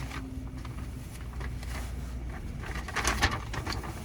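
Paper crackling and rustling as a gift envelope or card is handled and opened, the crackle busiest about three seconds in, over a steady low rumble.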